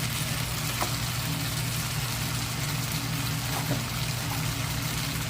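Chow mein noodles and vegetables sizzling in a hot pan over a high flame: an even hiss over a steady low hum, with a few light clicks.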